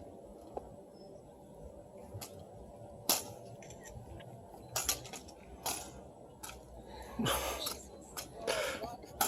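Drill rifles being handled in exhibition rifle drill: scattered sharp clacks and slaps as the rifles are spun, caught and struck, the loudest about three seconds in. Two short rustling, noisier stretches come near the end.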